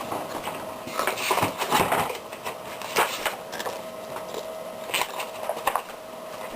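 A picture book being handled and its pages turned: irregular paper rustles and a few knocks, the strongest in a cluster about a second in, with single ones near the middle and later. A faint steady hum underneath.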